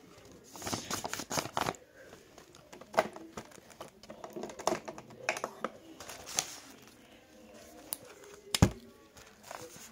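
Paper and pens being handled at close range: crinkling paper and a string of small clicks and taps as a pen is taken from a pen holder. Near the end a marker's cap is pulled off with one sharp click, the loudest sound.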